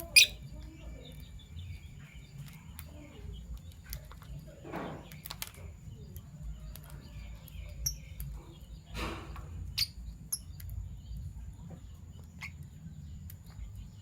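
Fischer's lovebirds giving scattered short chirps and clicks over a steady low hum, with a sharp loud click just after the start.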